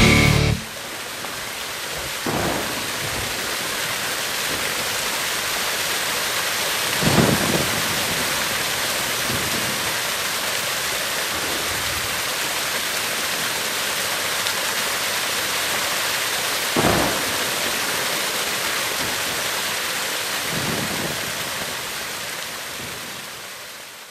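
Steady rain with thunder, four low rumbles in all, the strongest about 7 and 17 seconds in, fading out at the end. Heavy metal music cuts off in the first second.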